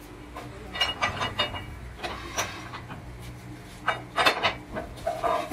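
Metal clamp arms on a steam-heated hose rig clanking and knocking as they are worked by hand, in irregular clusters with the loudest around four seconds in, over a steady low hum.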